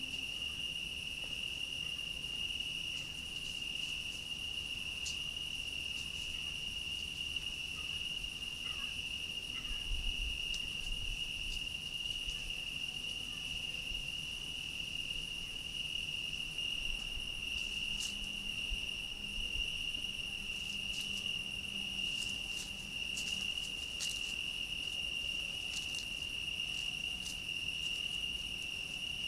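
Crickets calling in one steady, unbroken high-pitched trill, with a few faint clicks.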